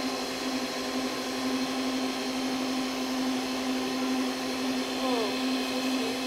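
Electric mixer running steadily at medium speed, a constant motor hum with a whine above it, its beaters whipping eggs into a foamy sponge-cake batter.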